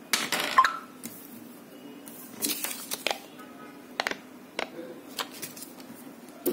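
Sheets of paper and a small card handled on a table: a run of separate sharp taps and clicks, with some rustling of the paper.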